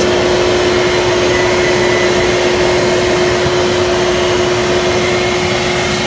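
Shop vac running steadily, a constant pitched whine over the rush of air, as its hose nozzle sucks caked grass clippings and debris off an air conditioner's condenser coil fins.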